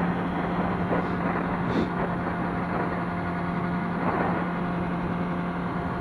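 Kawasaki ZX-6R inline-four engine running with a steady hum at constant motorway cruising speed, mixed with wind and road noise heard from a helmet-mounted camera.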